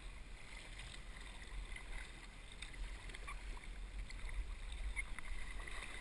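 Fast muddy river water rushing and splashing around a plastic kayak as it is paddled, with a few faint paddle strokes in the water over a steady low rumble.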